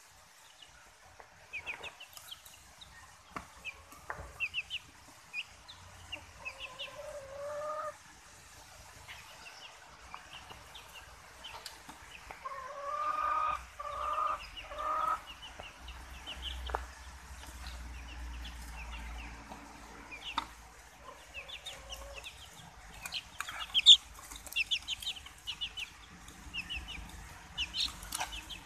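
Bantam and silkie chicks peeping in quick runs of short, high calls, with a hen clucking in lower calls among them, loudest as three calls in a row around the middle.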